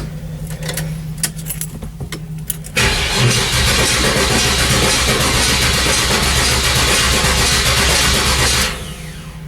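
Chevrolet Nova engine being cranked over by its starter in a start attempt after sitting unstarted all year; the loud cranking begins about three seconds in, after a few light clicks, and stops abruptly about a second before the end.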